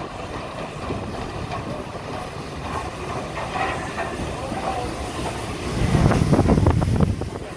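LNER A3 Pacific steam locomotive Flying Scotsman running slowly past at close range, its wheels and motion rumbling and knocking on the track. It gets louder with a heavy low rumble and quick knocks about six seconds in as it draws level, then the sound cuts off abruptly.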